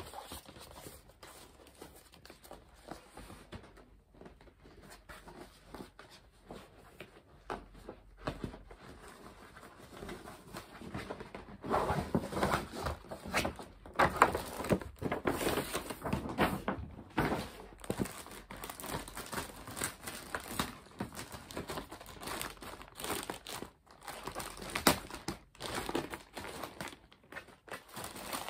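Paper gift-bag packaging rustling and crinkling as it is unwrapped by hand: light, scattered handling at first, then louder, busier crinkling from about a third of the way in.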